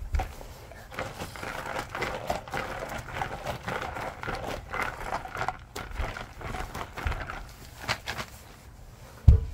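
Rocks rattling inside a sealed Lortone rubber tumbler barrel as it is shaken by hand to mix the final-polish charge, a dense run of small clicks, ending in a heavy thump near the end as the barrel is set down.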